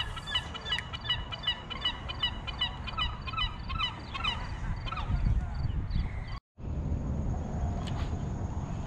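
A flock of birds calling: many short honking calls overlap for the first four seconds or so, over a low wind rumble. The sound drops out briefly about six and a half seconds in, and a steady high-pitched whine continues afterwards.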